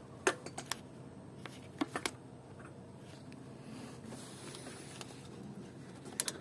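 A few light clicks and taps of hands handling parts in a car's engine bay, over a faint steady low hum.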